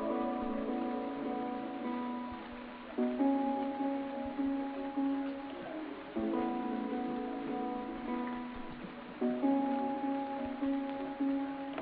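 Background music, its chords changing about every three seconds.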